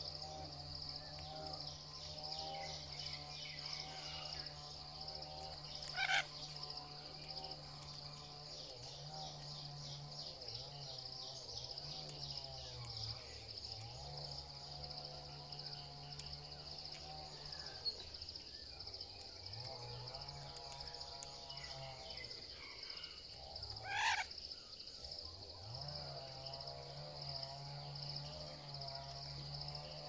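Steady high-pitched drone of insects in tropical woodland over a low hum that dips in pitch now and then, broken twice by a short loud bird call, about 6 and 24 seconds in.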